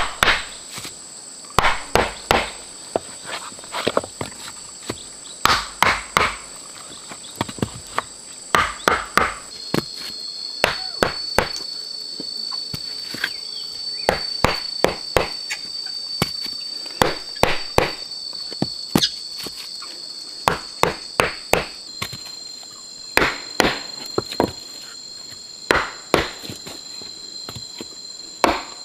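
Sawn wooden log rounds being set down and knocked into place in a dirt path: a long run of irregular sharp wooden knocks, often two or three in quick succession. Insects keep up a steady high-pitched drone underneath, which changes pitch twice.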